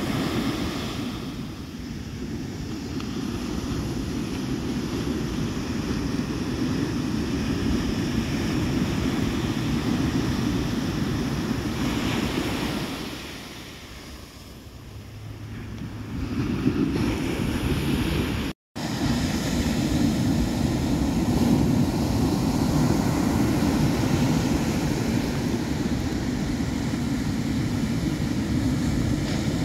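Ocean surf breaking and washing on the shore, with wind rumbling on the microphone. The sound dips for a few seconds around the middle and cuts out for an instant a couple of seconds later.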